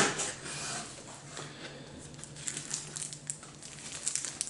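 Cardboard box and plastic packaging being handled: a rustle as the box opens, then scattered sharp crinkles of a plastic sleeve and air-cushion wrapping being lifted, over a faint steady low hum.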